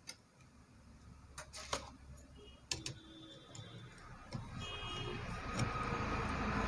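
Scattered small metallic clicks and taps from a screwdriver, screws and wire terminals being worked on a motor starter's contactor, about four sharp ones in the first three seconds. A background noise swells steadily louder through the second half.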